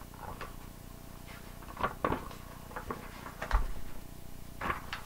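A large hardback picture book being handled and its page turned: a string of short papery rustles and taps, with a dull knock about three and a half seconds in.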